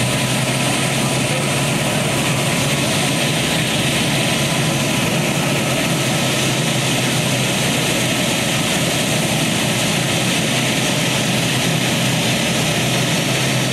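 Modified pulling tractor's engine running steadily while it sits hooked to the sled, before the pull.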